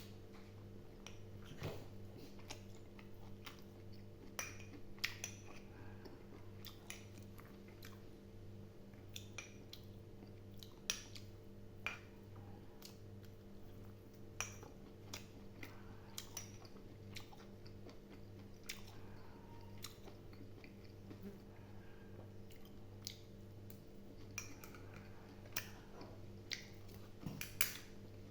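Close-up chewing of boiled pork intestines, with irregular wet clicks and smacks of the mouth. A steady low hum runs underneath.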